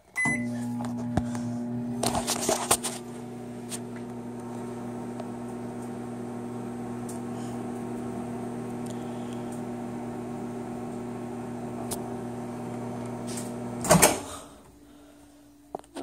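Microwave oven starting with a short keypad beep, then running with a steady low hum with a few brief clicks, while CDs heat inside. The hum stops about fourteen seconds in with a loud clunk of the door being opened.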